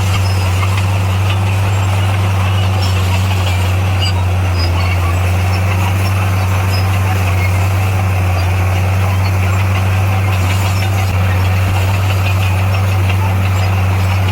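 Bulldozer's diesel engine running steadily at constant speed: a deep, even drone with no changes in pitch.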